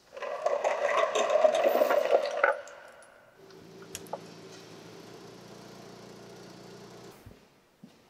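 About two and a half seconds of loud metallic clattering and rattling, then a forklift running with a steady hum that cuts off about seven seconds in.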